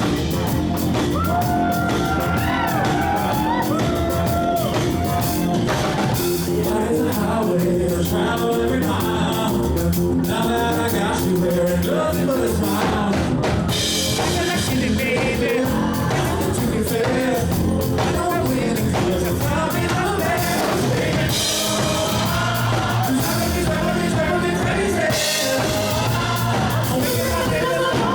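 Live pop song performed loud: a singer's voice over a steady dance beat with drums and bass.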